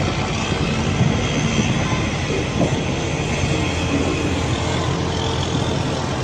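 Steady, dense rumbling roar from a large explosion, with no single sharp bang.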